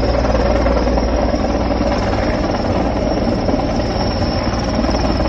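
Heavy-lift helicopter hovering with a sling load beneath it, its rotor and engines making a loud, steady noise.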